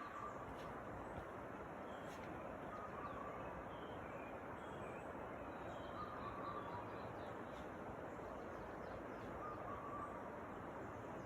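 Forest birds calling over a steady background hiss: a short call repeated about every three seconds, with scattered brief higher chirps in between.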